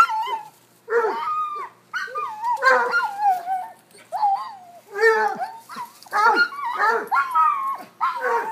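Cocker spaniel–hound mix baying and barking over and over in drawn-out calls that bend up and down in pitch, with short gaps between them.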